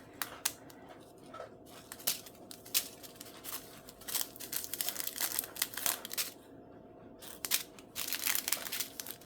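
Small plastic bags of diamond painting drills crinkling and rustling as they are handled, in a run of short irregular crackles with a brief lull about two-thirds of the way through.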